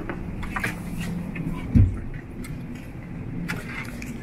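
Airliner cabin ambience at the gate: a steady low hum with scattered light clicks and rustles, and one heavy thump a little under two seconds in.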